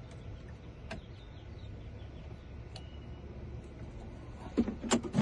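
Key-cutting machine running steadily as it cuts a new transponder key blade, with a few light clicks and several short louder knocks near the end.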